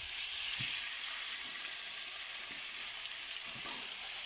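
Chicken pieces and chopped garlic frying in hot oil in a pan, a steady sizzle, with a couple of faint knocks of stirring.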